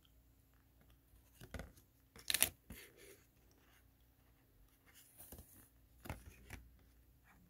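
Faint handling of cardboard football trading cards: a few short scrapes and flicks as cards slide against each other and one is flipped over, the loudest about two and a half seconds in.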